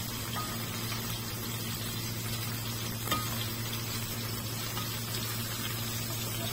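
Chicken patties sizzling in oil in a nonstick frying pan, a steady sizzle over a low hum, with one short tap about three seconds in.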